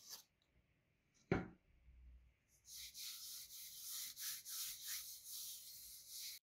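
A single knock about a second in, then a floured hand rubbing flour along a wooden rolling pin: a dry hissing scrape in quick strokes, about three or four a second.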